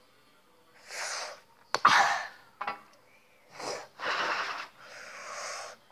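A child's harsh, wheezing breaths and gasps through the mouth, half a dozen separate bursts with the loudest about two seconds in: a reaction to the burn of hot Takis chips.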